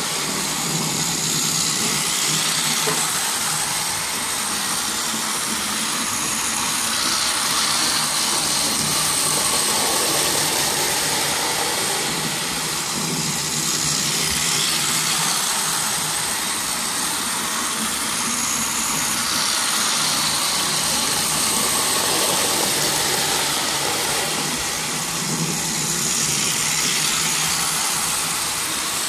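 Toy train running around a plastic track loop: a steady mechanical running noise that swells and eases about every six seconds as the train comes near and moves away.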